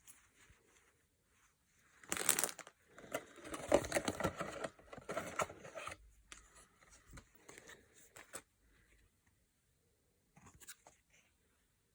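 Blind-box packaging being torn open by hand: a sharp tear about two seconds in, then a few seconds of crinkling and rustling that thins out, with a few light clicks near the end.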